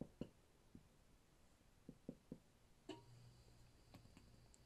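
Near silence: a few faint short taps and strokes of a dry-erase marker on a whiteboard, then from about three seconds in a faint steady low hum.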